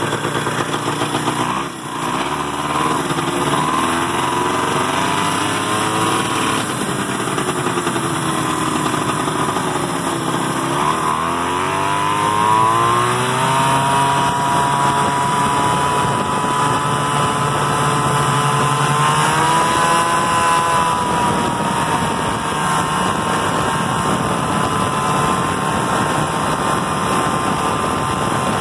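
Ariens Arrow snowmobile's Kohler 340 two-stroke engine under way. Its pitch climbs and falls as the throttle is worked over the first dozen seconds, rises sharply, then runs steadily at speed, stepping up once about twenty seconds in.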